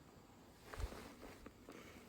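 Footsteps: one heavy step with a dull thump a little under a second in, followed by a few lighter steps.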